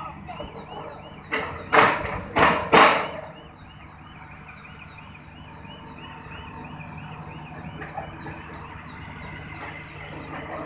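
A diesel engine running steadily under a fast repeating warbling warning alarm on the crane or piling machinery, chirping about four times a second. About a second and a half in come three or four loud rushing blasts of noise.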